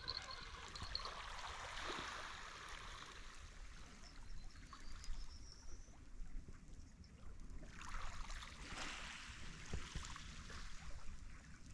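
Small waves washing and trickling among shoreline rocks, swelling and easing.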